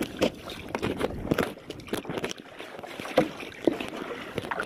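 Water splashing and lapping around a paddleboard, broken by irregular knocks and rubbing.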